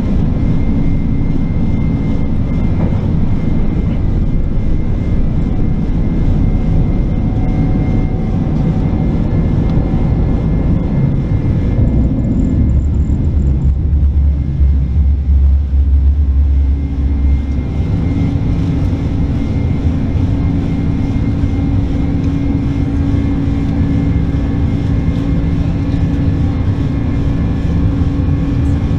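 Cabin noise inside a Boeing 747-400 climbing just after takeoff: a steady, loud low rumble of engines and rushing air. For a few seconds midway a heavier, deeper rumble swells, and after it a steady low hum settles in.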